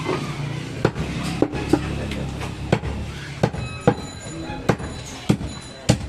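A large butcher's knife chopping through goat meat and bone on a round wooden block: about nine sharp chops at uneven intervals.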